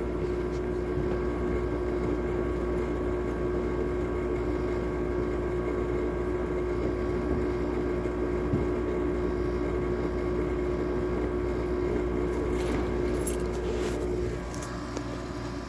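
Window air conditioner running steadily: compressor and fan giving a constant hum with air noise. A few clicks come near the end, the hum drops out about fourteen seconds in, and the sound cuts off abruptly.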